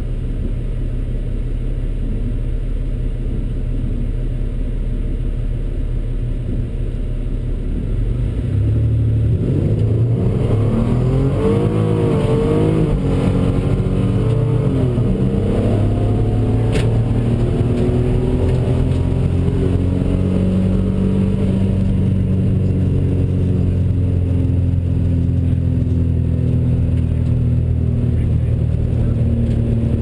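Car engine heard from inside the cabin. It idles at first, then about eight seconds in it revs up and pulls away, its pitch rising and dipping several times. It then settles into a steady run. A single sharp click sounds about seventeen seconds in.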